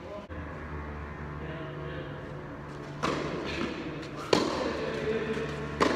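Tennis ball struck by racquets and bouncing on the clay during a rally: three sharp knocks in the second half, about a second and a half apart, the last two loudest. A steady low hum runs underneath.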